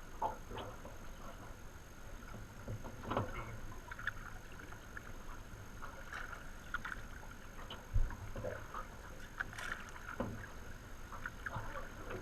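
Paddling a Grumman aluminium canoe on moving river water: scattered paddle splashes and drips over a steady low water rush, with one louder dull knock about eight seconds in.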